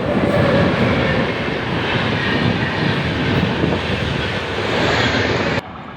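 A train passing through a railway station: a loud, steady rushing rumble that cuts off abruptly near the end.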